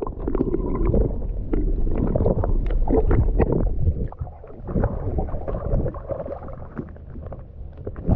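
Muffled gurgling and sloshing of seawater around a camera dipped under the surface and brought back up, with small knocks. It is quieter from about four seconds in.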